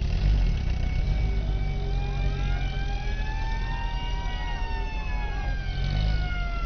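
Engines of WWII-era jeeps running as they drive slowly past, a steady low rumble. Over it a siren wails, rising slowly to a peak about four seconds in and then falling.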